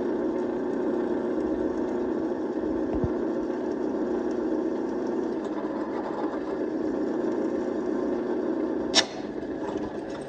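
Drill press running steadily as its bit drills out a rivet in the sprocket tip of a steel chainsaw guide bar. About nine seconds in there is a single sharp metallic click, and after it the sound is quieter.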